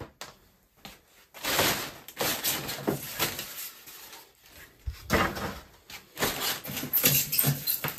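Polystyrene packaging pillar being pulled off the corner of a dishwasher, scraping and rustling against the plastic wrap in two spells with a few knocks.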